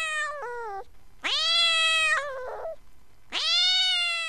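Domestic cat meowing: three long, drawn-out meows in a row, each sliding down in pitch as it ends.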